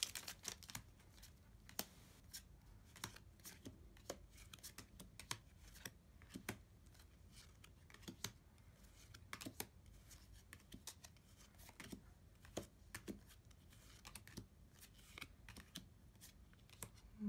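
Faint, irregular light clicks and flicks of trading cards being handled and sorted through.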